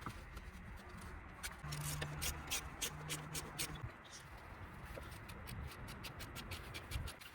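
Ratchet wrench clicking in a run of quick clicks, about two to three a second, as the brake caliper bolts are tightened.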